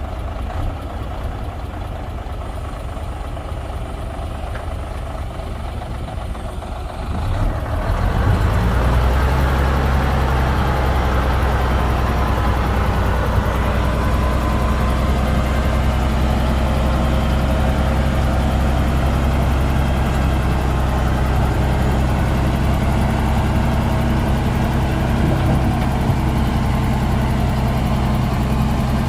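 Heavy diesel engine of earthmoving machinery running at a low idle, then about seven seconds in it speeds up and holds a louder, steady run under power.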